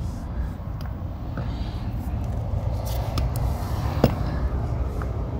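Steady low outdoor rumble with a few light clicks and knocks, one sharper click about four seconds in.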